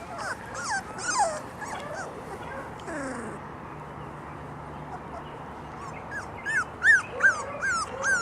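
Four-week-old Labrador Retriever puppies whimpering and yipping. Short, high squeals that fall in pitch come in the first couple of seconds, then a lull, then a quick run of yelps, about three a second, near the end.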